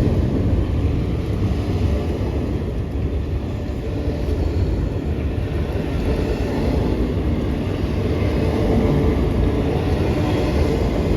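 Cars of a long freight train rolling past: a steady rumble of wheels on the rails.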